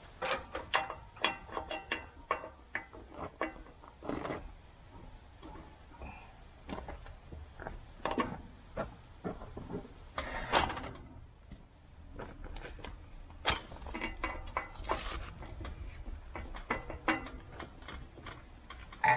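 Hydraulic quick couplers and hose fittings on a tractor front loader being worked by hand: a run of sharp metallic clicks, clanks and knocks at irregular intervals, with a few short scraping or rustling noises.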